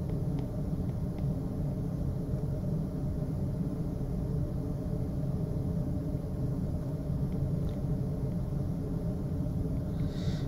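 Steady low hum and rumble of background noise, with a few faint light ticks of a stylus on a drawing tablet and a brief soft hiss near the end.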